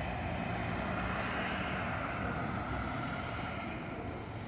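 Steady hum of passing vehicle traffic, easing off slightly toward the end.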